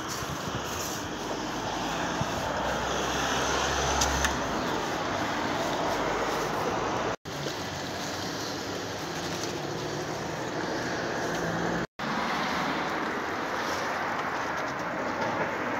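Steady outdoor background noise, a hiss with low rumble like distant road traffic, broken by two very brief silences about seven and twelve seconds in.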